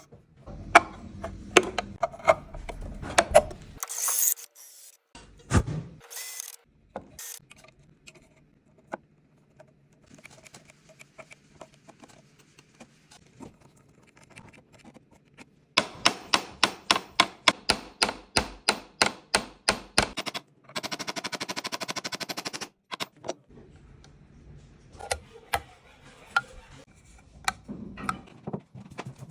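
Hand-tool work fitting a small cabinet lock into wood: scattered clicks and taps, short hissing scrapes, then a run of quick even strikes about four or five a second lasting some four seconds, followed by a steady whirr of about two seconds and a few more taps.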